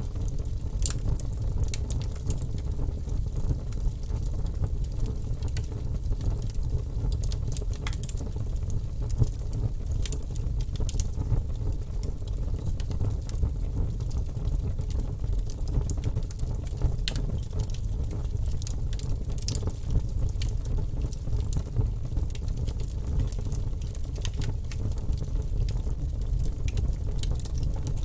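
Wood fire burning in a fireplace: a steady low rumble of the flames with irregular sharp crackles and pops from the burning wood.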